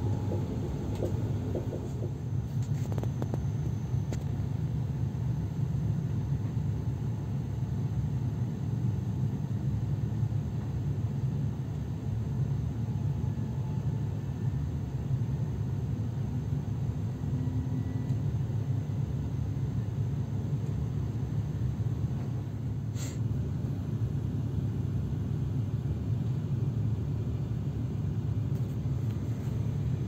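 Steady low rumble of a passenger train heard from inside the carriage, with one brief click about two-thirds of the way through.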